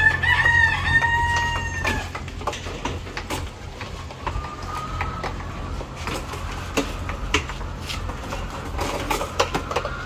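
A rooster crows once at the start, a single long call of about two seconds, over a steady low hum. Scattered light clicks and knocks follow, from plastic egg trays being handled on a cart.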